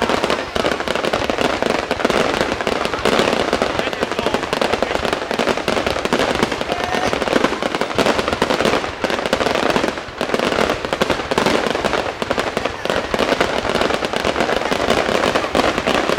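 Fireworks display: a loud, dense, unbroken run of rapid bangs and crackles, thinning briefly about ten seconds in.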